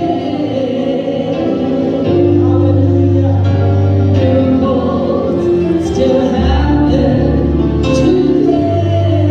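Gospel music: a choir singing over a steady bass accompaniment.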